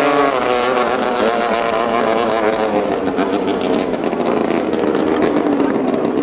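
BT9-class racing speedboat engine: its steady high-revving note drops and wavers right at the start as the boat backs off, then runs rough and uneven with a rapid crackle through the rest.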